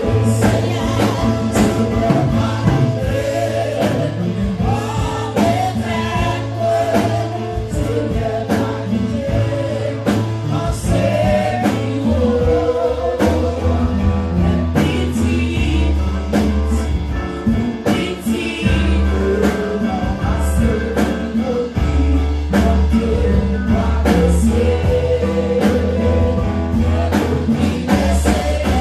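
Live gospel worship song in Haitian Creole: lead singers on microphones and the congregation singing together over instrumental accompaniment with a steady bass line and percussive beats.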